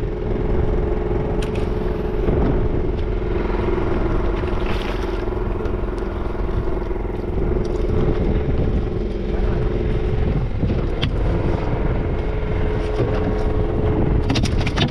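Engine on a fishing boat running steadily with a constant hum. A few sharp knocks come near the end.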